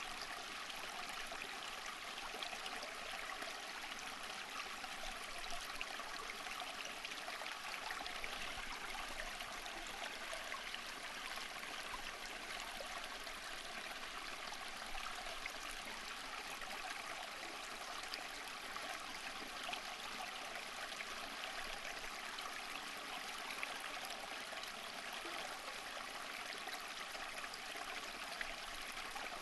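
Flowing water of a stream or brook, a steady babbling trickle with fine splashes and no change in level.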